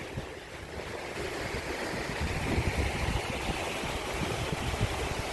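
Waterfall and creek water rushing steadily, growing louder about a second in, with an uneven low rumble underneath.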